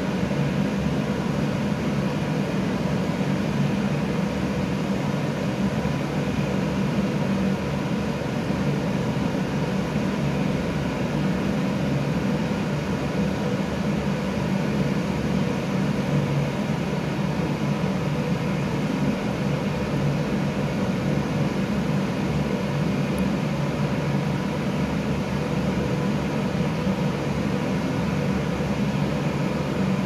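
Vintage side-button electric hand dryer running: a steady hum from its fan motor over the rush of blown air, unchanging throughout.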